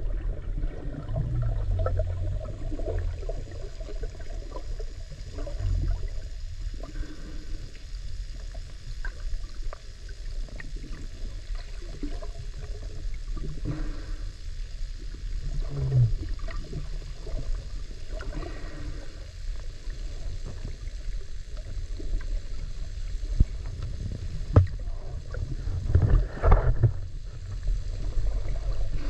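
Muffled underwater sound picked up by an action camera submerged in open water: a steady low rumble and water noise with scattered faint clicks, and a few louder knocks and thumps near the end.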